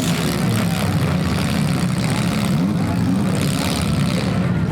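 Engines of several demolition-derby compact cars running and revving together, a loud, continuous din with engine pitch rising and falling midway.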